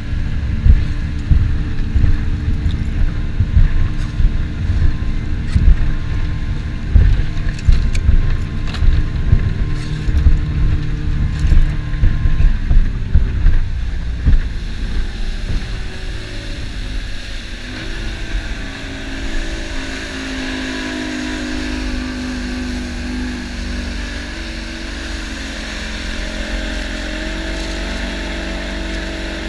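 Boat's outboard motor running under way, with a heavy, uneven low rumble. About two-thirds of the way through the engine pitch rises and settles into a steady drone as the boat runs at speed.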